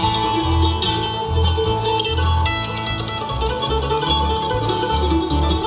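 Live bluegrass band playing an instrumental passage: picked mandolin, banjo and acoustic guitar over an upright bass playing steady, regular bass notes.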